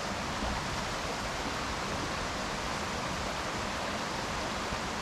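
Mountain creek running, a steady even rush of water.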